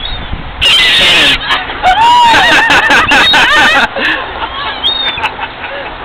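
A flock of gulls calling as they crowd in to be hand-fed. A brief burst of noise comes just under a second in, then from about two to four seconds in comes a dense stretch of many overlapping calls, thinning to scattered calls near the end.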